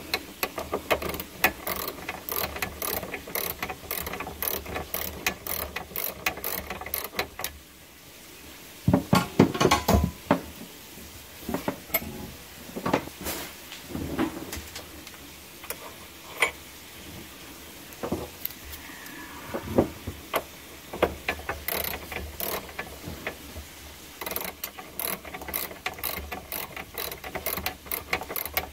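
Hand ratchet wrench clicking in quick runs as it turns bolts, with a few heavier metal knocks about a third of the way in. The clicks come as the engine is bolted back onto new engine mounts.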